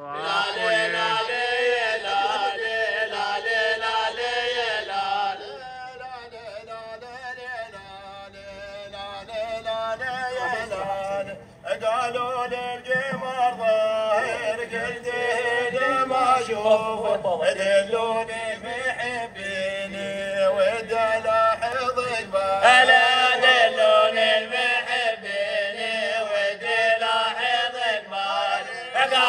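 A group of Omani men chanting a folk song together. A quieter stretch runs from about six to eleven seconds, with a brief drop just before twelve seconds, and then the chanting comes back loud.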